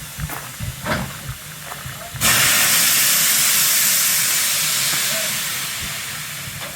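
Steam locomotive releasing steam: a sudden loud hiss starts about two seconds in, holds, then slowly fades.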